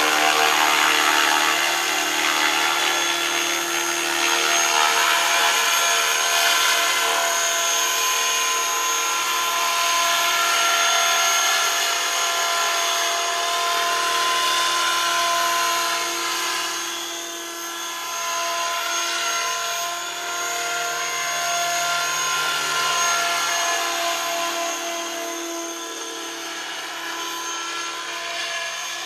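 Radio-controlled model helicopter with a flybarless rotor head in flight: a steady whine of motor, gears and rotor blades with several held tones, getting quieter about halfway through and again near the end.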